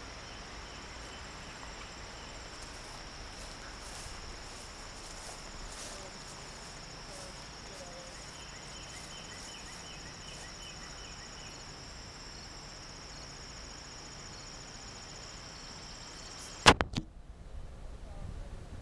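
Steady high-pitched chorus of insects, with faint repeated chirps partway through. Near the end a sharp, loud knock, after which the chorus stops.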